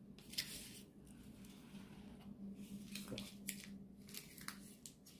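Faint eating sounds: a scatter of soft clicks and scrapes from a utensil in a food container and from chewing, over a faint steady low hum.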